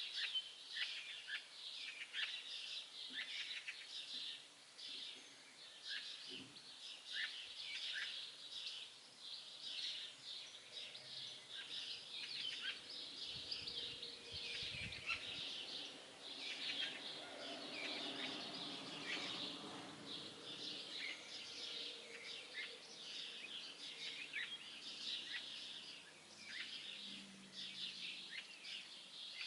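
A chorus of many small songbirds, with dense short, high chirps and song phrases overlapping throughout. A faint low rumble comes in about halfway through.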